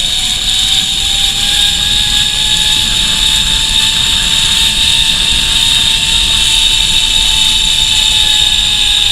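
Zip-line trolley pulleys running along the steel cable: a steady whine that climbs slowly in pitch as the rider speeds up and falls away near the end, over loud wind rush on the microphone.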